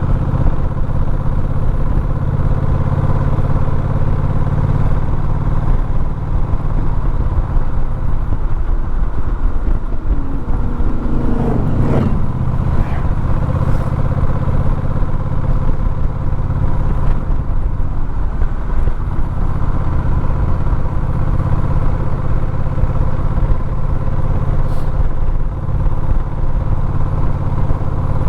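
A motor vehicle's engine running steadily while driving, with road noise. About ten seconds in, a pitched whine sweeps upward for a couple of seconds.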